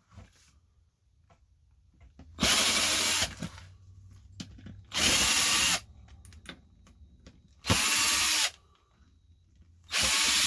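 Small power drill run in four short bursts, about two and a half seconds apart, driving screws out of a plastic radio case. The motor spins up quickly in each burst, and the last is cut off at the end. Faint clicks fall between the bursts.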